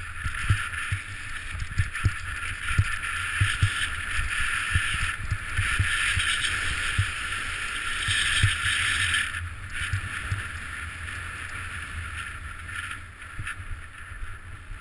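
Snow hissing and scraping under a rider's edges on a fast descent, swelling and easing as the turns change, with frequent low thumps of wind buffeting the microphone.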